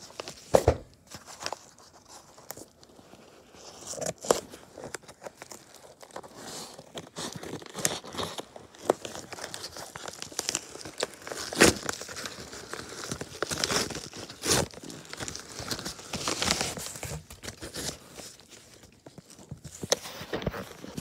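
Packaging being torn and crumpled as a cardboard shipping box is unpacked: irregular rustling and crinkling, with sharp snaps now and then, the loudest about half a second in and again about halfway through.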